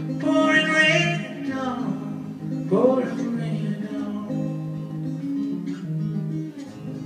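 Acoustic guitar strumming the closing chords of a slow song, with a short sung note near the start.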